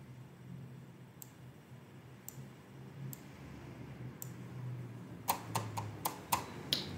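Faint, sparse clicks about once a second, then a quick run of louder clicks and taps over the last couple of seconds.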